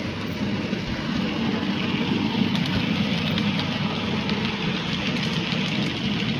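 OO gauge model freight train of vans running past on the track: a steady rumble of wheels and motor with light clicks over the rail, loudest about two to three seconds in.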